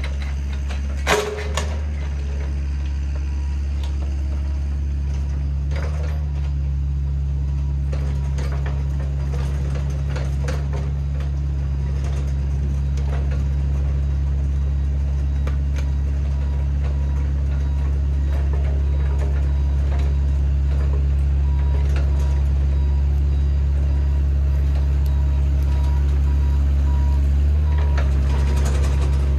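A motor running steadily with a low drone, slowly growing a little louder, with a sharp click about a second in and a couple of fainter knocks later.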